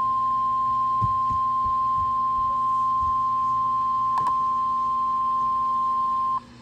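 NOAA Weather Radio warning alarm tone: one steady high-pitched tone held for several seconds, cutting off suddenly near the end. It announces a severe thunderstorm warning about to be read.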